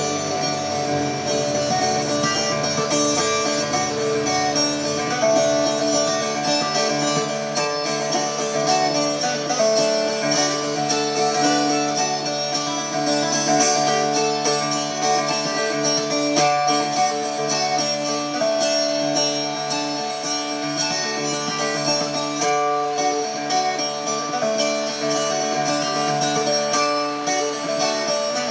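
Plucked acoustic string instruments playing an instrumental tune, with steady sustained drone notes under a changing melody.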